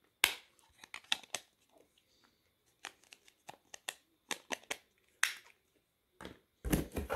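Scattered sharp plastic clicks and taps as an LG VX6100 flip phone and its back cover are handled. Near the end comes a denser clatter and rustle as phones are moved in a cardboard box.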